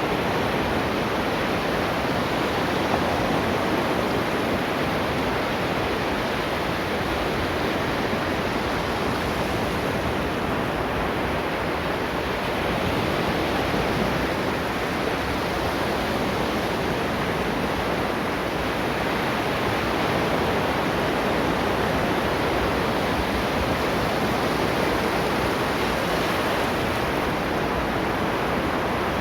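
Ocean waves washing onto a shore: a steady, unbroken rush of surf that swells only slightly in loudness.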